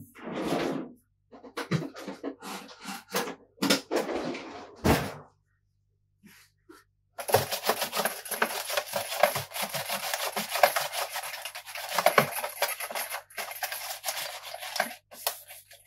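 A wipe rubbed quickly back and forth over a PlayStation 3 top cover's glossy plastic, a dense scrubbing that starts about seven seconds in. Before it, a few short scattered handling sounds.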